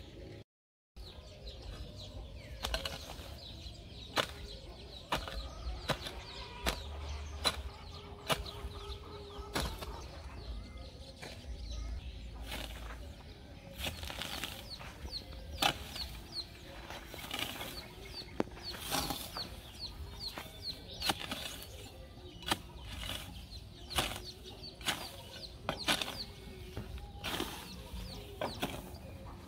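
Hoe blade chopping and scraping through grass and dry soil in irregular strikes, about one or two a second.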